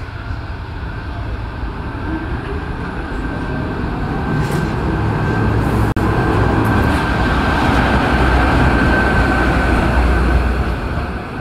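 FS class E656 electric locomotive arriving along the platform and passing close by, hauling passenger coaches. The rumble of the locomotive and its wheels on the rails grows louder as it passes, about six seconds in, with a steady high tone running over it.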